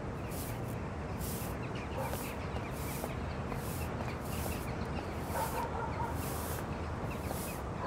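Small birds chirping over a steady hum of town traffic.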